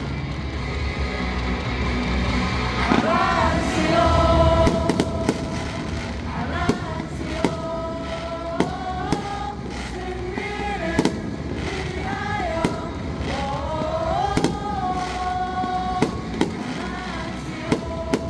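Fireworks going off in a string of sharp bangs at irregular intervals, over music with a held, gliding melody.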